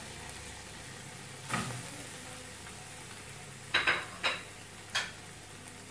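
Sliced red onion and garlic frying in hot oil in a pan, a steady sizzle, with a few sharp clicks about a second and a half in and again in the second half.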